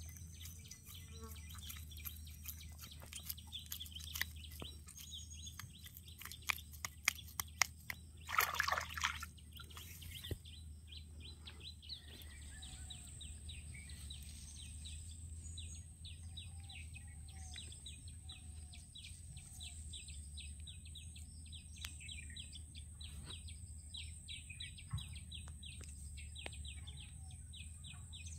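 Birds chirping faintly in a steady stream of short high calls, over a steady low hum. About eight seconds in there is one brief louder noise.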